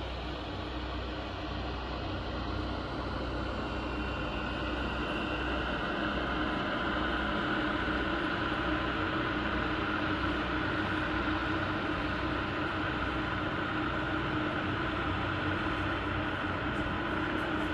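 Two tractors' engines running steadily as they drive past, growing louder over the first eight seconds or so as they come closer, then holding steady.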